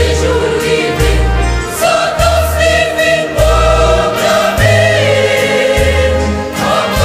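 Haitian Creole gospel song: singing voices hold long notes over a bass line that plays a new note about every second.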